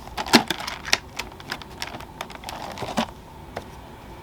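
Cardboard figure box and its inner paperboard packaging being opened and handled by hand: scattered sharp clicks and crinkles, the loudest about half a second in.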